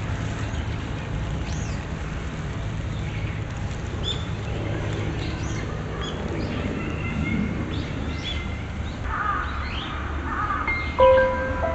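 Outdoor ambience of birds chirping over a steady low rumble, with a few harsher crow-like calls near the end. A sustained musical chord comes in just before the end.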